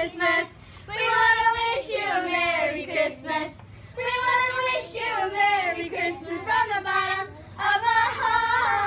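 A group of children singing a Christmas carol together, in sung phrases with short breaks for breath.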